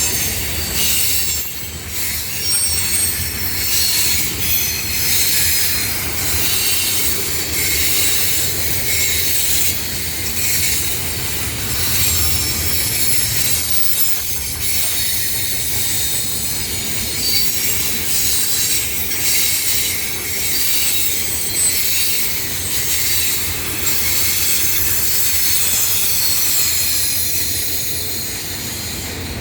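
Norfolk Southern freight train rolling past: a steady rumble of the cars with short high wheel squeals and the repeated clicks of wheels over rail joints.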